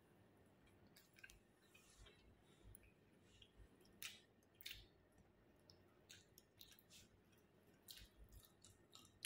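Near silence with faint soft clicks of a man chewing a mouthful of flatbread, a few louder ones about four seconds in and several near the end.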